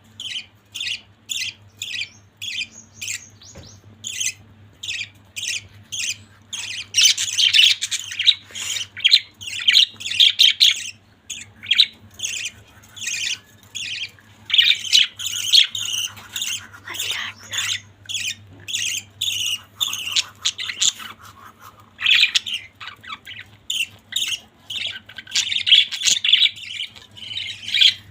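Pet budgerigars chirping and chattering: a quick series of short, high calls, several a second, running together at times into dense, overlapping chatter.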